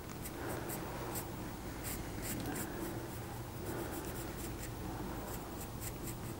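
Pencil drawing on a basswood block: faint, short scratching strokes of the lead across the wood, coming at an irregular pace.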